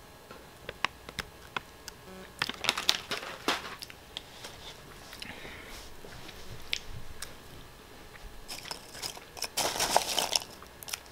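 Dry, crunchy potato snack sticks and their foil snack bag being handled: a few sharp clicks, then a crisp crackling rustle about two and a half seconds in, and near the end a dense crunchy rustle as fingers pick through the sticks on a plate.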